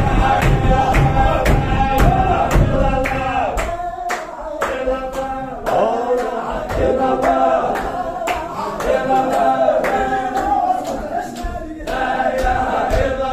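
Men chanting a Sufi zikr together, with a steady beat of sharp strikes, about three a second, keeping time under the chant.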